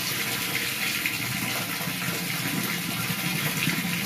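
Steady rush of running water splashing into a shallow water-filled box.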